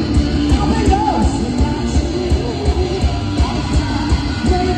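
Live rock music played loud: electric guitar over a steady drum beat.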